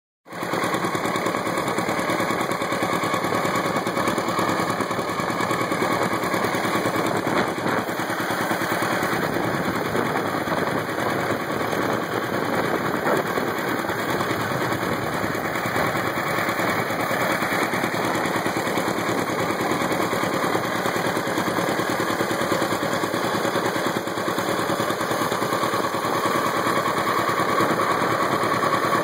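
John Deere G tractor's two-cylinder engine running on its first run after an overhaul, with a steady string of rapid, even exhaust beats. It starts about a third of a second in and keeps going at an even level.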